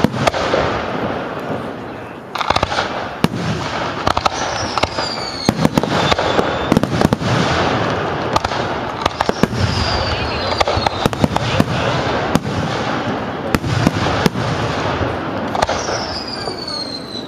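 Aerial fireworks display: shells bursting in quick succession with many sharp bangs and crackling. A few high whistles fall in pitch in between.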